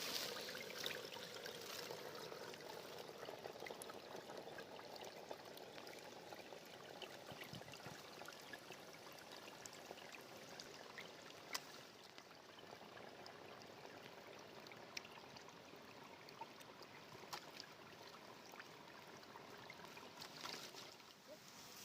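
Faint running, trickling water, with a few light clicks scattered through. It is louder in the first couple of seconds, then settles lower.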